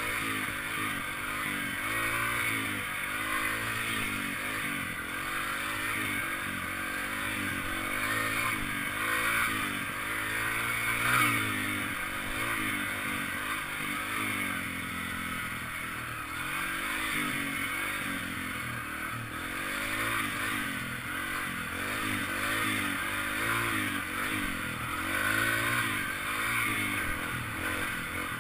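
Yamaha TT-R trail bike's single-cylinder four-stroke engine running while riding, its pitch rising and falling again and again as the throttle opens and closes. There is a single louder knock about eleven seconds in.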